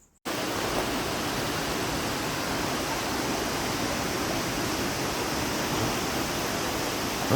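Abiqua Falls, a waterfall, with its water rushing in a loud, steady roar that starts abruptly a moment in.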